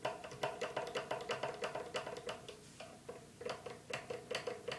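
Metal ruler used as a straightedge clicking and rattling against the frets of an archtop guitar neck as it is rocked, in quick clicks with a light ringing from the ruler and a short pause about three seconds in. The ruler rocks instead of sitting flat because the neck has a bad crown (a hump along the fretboard).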